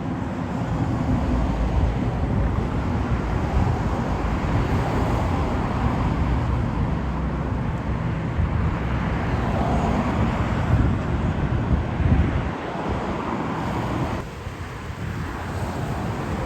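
City street ambience: steady road traffic noise with wind rumbling on the microphone, easing briefly near the end.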